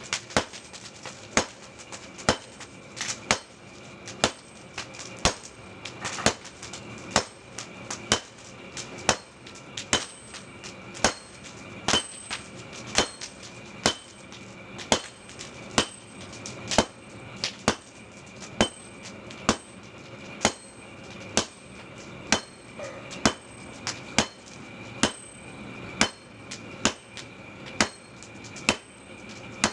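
Hand hammer striking an iron blade held in tongs on a small post anvil: ringing metal-on-metal blows at a steady pace of about one a second, now and then two in quick succession.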